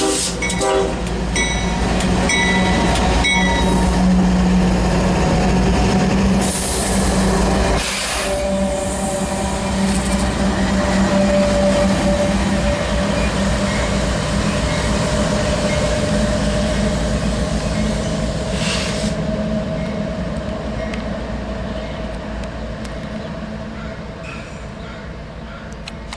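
Union Pacific light engine consist of GE ES44AC and AC4400CW diesel locomotives passing. The horn chord cuts off right at the start, followed by a few short high pings, then a steady diesel drone. The drone fades as the locomotives move away.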